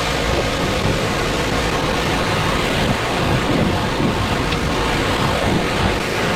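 Pressure washer running, its water jet spraying steadily.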